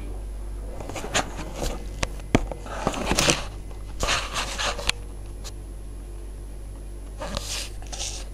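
Samsung WF9700N3W front-loading washing machine on a wool wash: a steady low hum with irregular swishing from the soaked blankets in the slowly turning drum, and a few sharp clicks.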